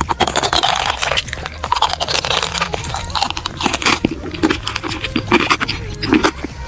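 Close-miked mouth ASMR: irregular crunching and biting into a sugar-crystal-coated candy, with sharp wet mouth clicks.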